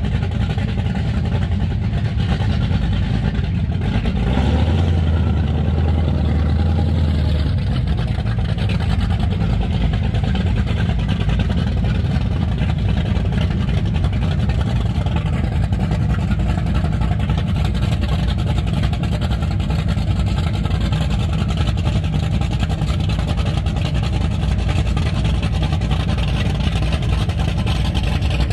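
DCB M41 catamaran powerboat's engines running at idle as the boat creeps in at low speed, a steady low engine sound. The low note grows stronger for about three seconds, starting some four seconds in.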